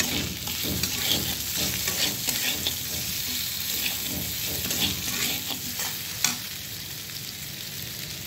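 Flat metal spatula stirring and scraping boiled potato cubes around a kadhai in repeated strokes, over a light sizzle of hot oil as the potatoes fry with cumin. One sharper knock stands out about six seconds in.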